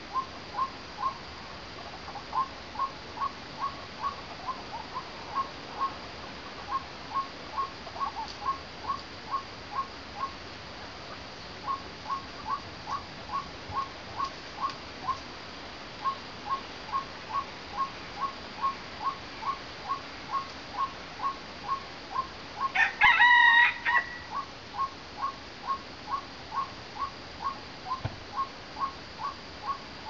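White-breasted waterhen calling: a steady run of short, repeated notes, about two a second. About 23 seconds in, a rooster crows once, the loudest sound.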